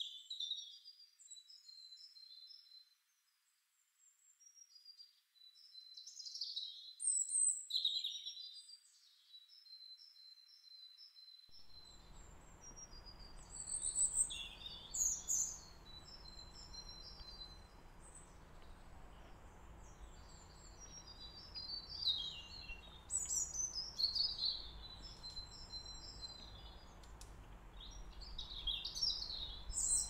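Small garden birds singing and calling: a run of high chirps, short trills and quick sweeping notes that come and go throughout. About twelve seconds in, a low steady background rumble starts under the birdsong.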